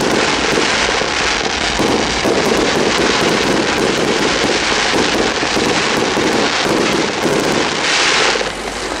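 Fireworks display: a dense, unbroken barrage of shell bursts and crackling, with a brief louder hiss about eight seconds in.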